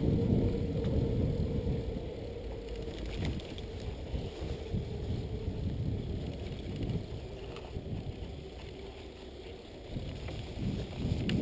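Mountain bike riding along a sandy dirt road: tyre and wind noise, with a faint steady hum over the first few seconds.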